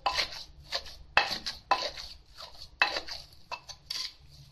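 Wooden pestle pounding thick jaew bong chili and fermented-fish paste in a clay mortar, in uneven strokes about two a second, with a metal spoon scraping and turning the paste against the bowl.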